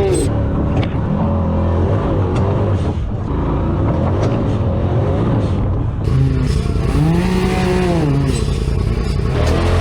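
Side-by-side UTV engine running under load, its pitch climbing and falling back as it is revved, with one clear rev up and down near the end.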